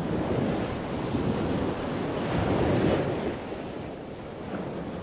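Sea waves washing onto the shore, one rushing swell that builds to a peak a little past halfway and then ebbs, with some wind.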